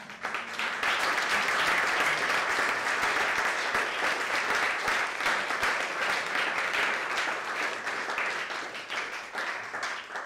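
Audience applauding at the end of a talk: many hands clapping in a dense patter that starts right away and fades out near the end.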